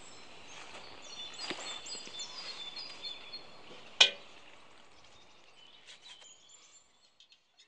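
Outdoor ambience with small birds chirping, and one sharp knock about four seconds in. The sound fades out near the end.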